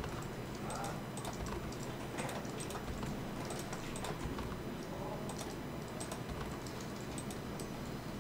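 Computer keyboard keys and mouse buttons clicking irregularly, a few clicks a second, over a steady low hum.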